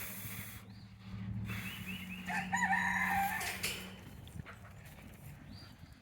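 A rooster crowing once, a call of about a second and a half, over a low steady hum that stops soon after the crow ends.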